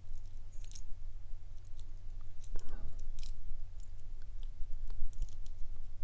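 Scattered light metal clicks and taps as an opened Centurion padlock is turned over and handled, with a steady low hum underneath.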